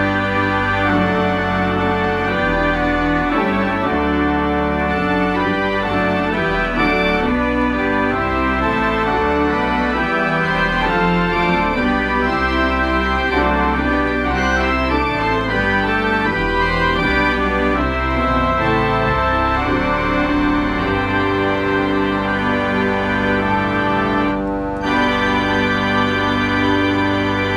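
Compton cinema organ playing carols: full sustained chords over a deep pedal bass, with a brief break in the upper notes near the end.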